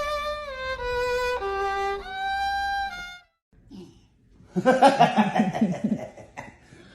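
A slow melody of sustained notes on a violin, which stops about three seconds in. After a short gap comes a loud, rough burst of sound lasting about two seconds.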